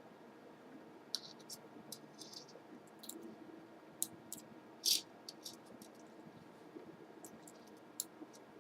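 Scattered light clicks and taps from small parts being handled on a laptop, with one louder brief scrape about five seconds in.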